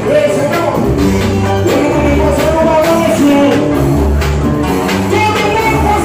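Live band playing loud dance music: a man singing into a microphone over hand drums and a heavy, pulsing bass beat.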